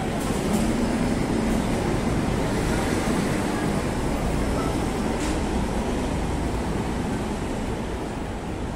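Steady low rumble of street traffic, with no single sound standing out; it eases off slightly near the end.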